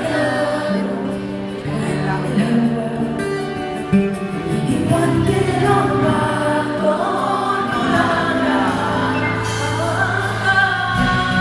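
Live concert music: a woman singing a pop song over held low accompaniment notes.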